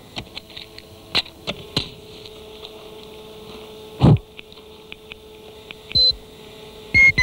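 Electronic synthesizer sound: a steady hum-like tone with faint scattered clicks, a single heavy thump about four seconds in, a brief beep near six seconds, and a quick run of short beeping notes near the end.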